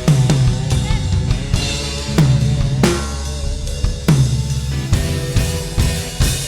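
Live reggae band playing an instrumental passage on drum kit and bass, with low notes that slide down in pitch every second or two; the music fades out near the end.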